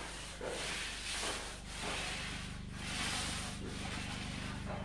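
Paint roller rolling paint onto a plastered wall, a rubbing swish that swells and fades about once a second with each stroke. A faint steady low hum runs underneath.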